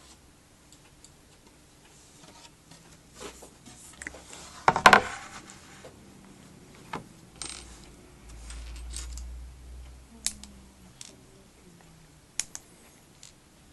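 Scattered clicks and knocks of cabinet panels and small hardware being handled, with a louder clatter about five seconds in and a brief low rumble a few seconds later.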